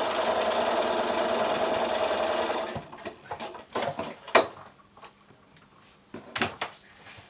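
Bernina electric sewing machine stitching a seam at a steady speed for nearly three seconds, then stopping. A few separate sharp clicks follow.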